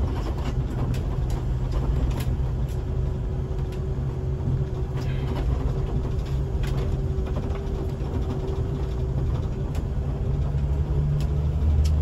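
Scania K360 bus's five-cylinder diesel engine running steadily at road speed, heard from inside the cabin as a low drone. Light rattles tick through it, and a faint steady whine sounds through the middle.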